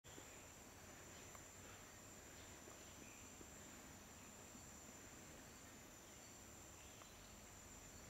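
Faint, steady, high-pitched insect drone of crickets or similar insects, with no other clear sound.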